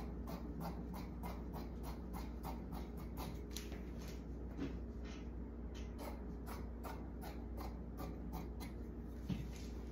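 Scissors snipping through cotton fabric in a steady run of cuts, about three snips a second, over a low steady hum.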